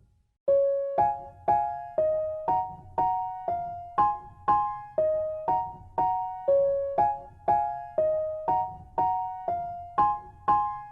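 Background music: a piano-like keyboard melody of single struck notes, about two a second, each fading away, starting about half a second in after a brief silence.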